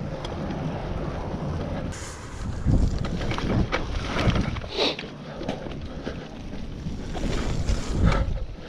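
Mountain bike ridden over a rough grassy trail: wind buffeting the camera's microphone over the rumble of tyres on the ground, with the bike rattling and knocking over bumps several times.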